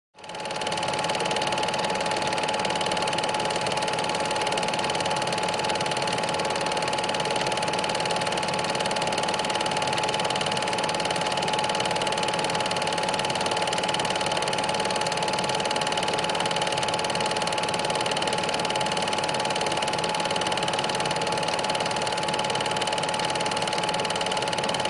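Film projector running: a steady mechanical whirr with a constant motor hum that starts abruptly and holds unchanged throughout.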